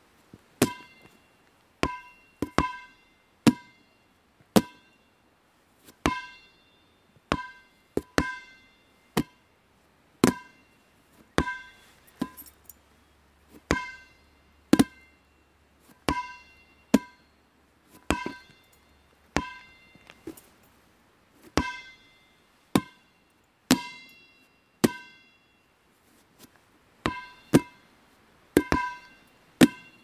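Dodgeball bouncing again and again, a bit more than once a second at uneven spacing, with some quick double bounces. Each bounce is a sharp smack followed by a brief ringing tone.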